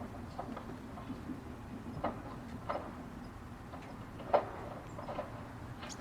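Scattered light taps of drizzle on a raincoat, irregular and a few each second, the sharpest about four seconds in, over a faint steady low hum.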